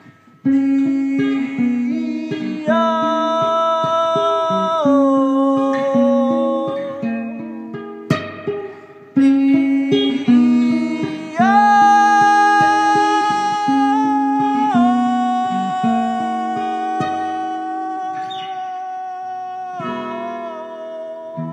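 Ovation acoustic guitar strummed through E major pentatonic chords, with a man singing long held notes over it that step from one pitch to the next. The playing breaks off briefly about eight to nine seconds in, then comes back in.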